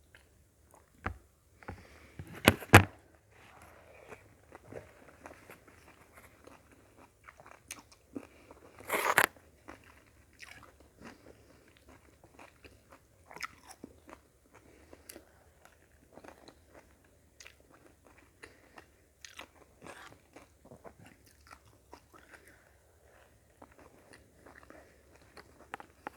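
Close-up eating sounds: chewing, biting and mouth noises while eating rice and sautéed vegetables with a spoon, with small clicks throughout and two louder knocks, one a couple of seconds in and one about nine seconds in.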